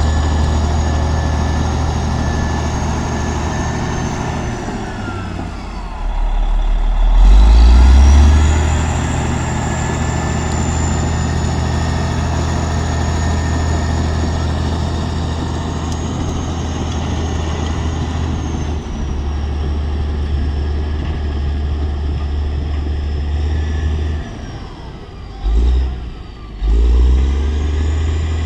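Engine of heavy road-building machinery running steadily. Its pitch falls about five seconds in, then revs up to the loudest point a couple of seconds later. Near the end it drops off briefly twice and picks up again.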